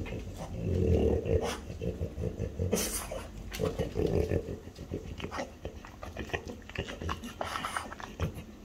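French bulldog sniffing and breathing noisily close to the microphone as it noses toward the dish, loudest about a second in. Quick clicking sounds follow through the second half as it reaches the dish and puts its nose in.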